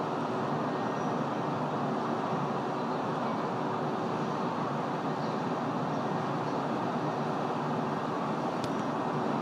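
Steady city traffic noise: an even rumble with no distinct events, and a single faint click near the end.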